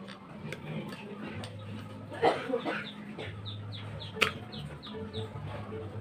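A chicken clucking in the background, with one louder call a little after two seconds and then a quick run of short falling notes. A few small metallic clicks come from pliers on a brass faucet, the sharpest about four seconds in.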